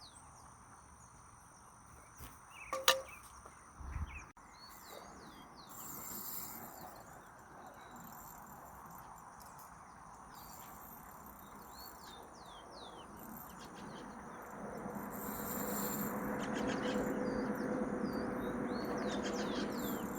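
Outdoor ambience of birds chirping and a steady high insect drone, with a sharp click about three seconds in and a low thump a second later. From about two-thirds of the way through, a broader rush of noise with a low hum rises and holds.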